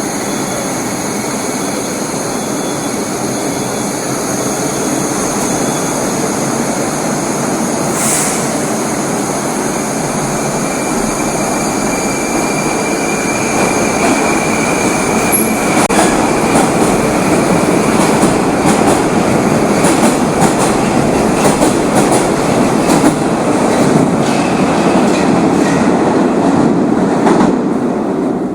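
Moscow metro train running through a tunnel: a steady rumble of wheels and running gear that grows a little louder partway through. A thin wheel squeal comes and goes near the middle, followed by a long run of sharp clacks over the rails.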